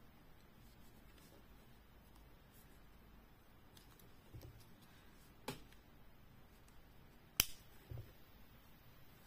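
Metal kiss-lock clasp on a coin-purse frame clicking: a lighter click about halfway through, then one sharp snap about three-quarters of the way in as the clasp shuts, with faint handling in between.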